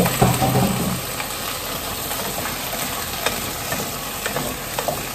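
Shrimp frying with garlic, onion and ginger in a pot on a gas burner: a steady sizzle, with a sharp knock at the start and a few light clicks of the wooden spoon later.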